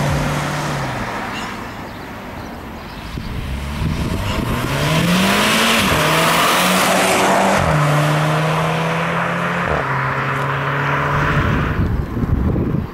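Volkswagen Scirocco R's turbocharged 2.0-litre four-cylinder engine accelerating toward and past, getting louder about four seconds in. The engine note rises sharply, then drops in pitch in a few sudden steps, with tyre and road noise, before fading out near the end.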